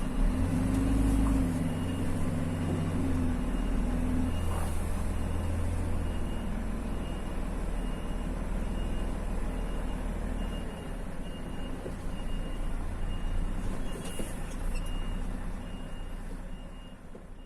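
Motor vehicle engine running steadily, with a high beep repeating at an even pace throughout; the sound fades out near the end.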